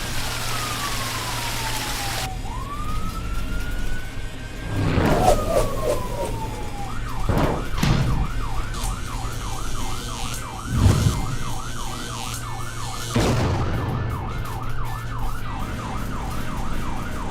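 Cartoon emergency siren: two slow rising-and-falling wails, then a fast yelp of about three cycles a second from about seven seconds in. Several sudden whooshes or thuds cut in, and a steady low hum runs underneath.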